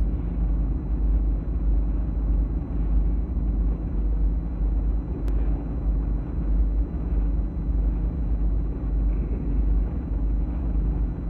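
Steady low hum and rumble with hiss: the background noise of an old 1970 archival recording, with one sharp click about five seconds in.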